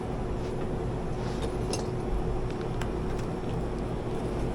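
Steady low mechanical hum of running equipment with a faint steady tone in it, and a few light clicks and ticks scattered through it.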